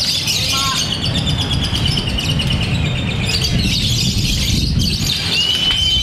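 Lovebird singing: a dense, continuous run of high chattering chirps, ending in a long, steady whistled note near the end, over a low background rumble.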